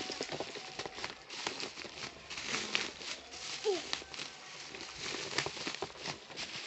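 Plastic and cardboard packaging crinkling and crackling in many short clicks as it is handled and opened.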